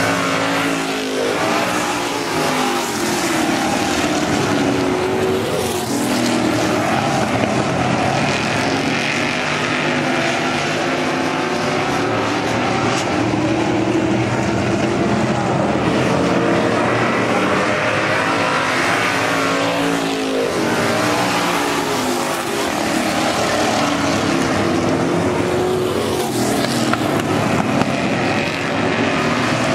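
A pack of eight-cylinder dirt-track stock cars racing at full throttle, their engines running continuously. The engine pitch swells and falls several times as cars pass by.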